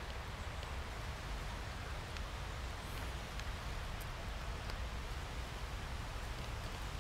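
Wind noise on the microphone: a steady hiss over a low, unsteady rumble, with a few faint ticks.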